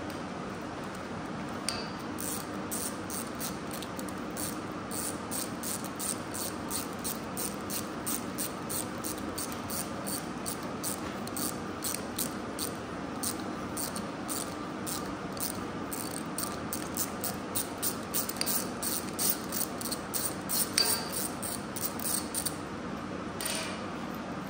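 Ratcheting tap wrench clicking in a long run of short strokes, a few clicks a second, as a thread tap is worked into a freshly drilled grease-fitting hole in the steel hitch to chase its threads. A steady low shop hum runs underneath.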